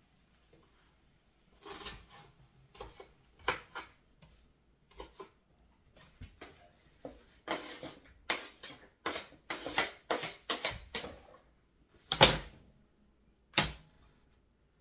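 Irregular knocks and clatters of kitchen things being handled, such as cupboard or drawer doors and pots, in a small room. They come in a loose string, bunching up in the middle, with the loudest single knock near the end.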